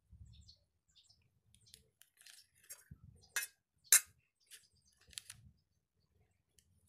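Light handling noises from a foil spice sachet being shaken over a steel bowl: soft crinkling and a few sharp clicks, the loudest about four seconds in.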